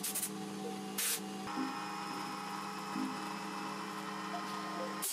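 Two short sprays of cleaner from a trigger spray bottle, one at the very start and one about a second in, followed by a steady hum.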